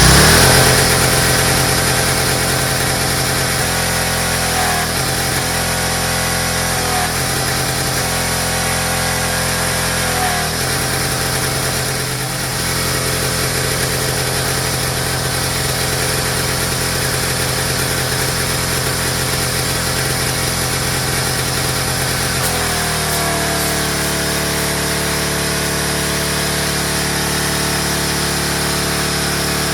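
Gas pressure washer's small engine running steadily just after starting, with a few brief dips in speed early on and a shift in its note about two-thirds of the way through.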